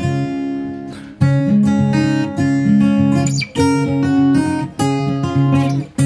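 Background music: acoustic guitar strumming chords, with a few brief breaks between phrases.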